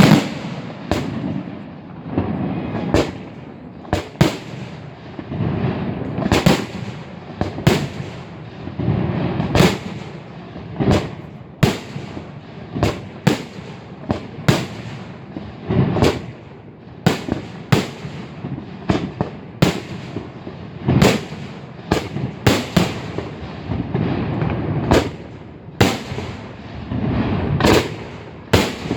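Aerial fireworks display: a steady run of shell bursts, sharp bangs at irregular intervals of about one or two a second, each trailing off in a short echo, over a continuous rumble of launches and crackle.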